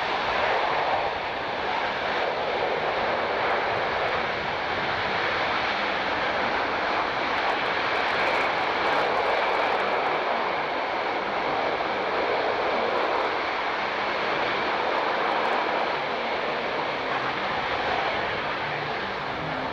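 Boeing C-17 Globemaster III's four turbofan engines running steadily in reverse thrust, as used to back the aircraft up on the ground.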